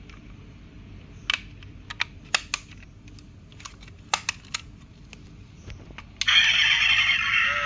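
Small sharp clicks and taps as the scissor doors of a 1/24 scale diecast model car are swung up and pressed shut. About six seconds in, the model's built-in engine sound effect starts suddenly, loud and steady from its small speaker.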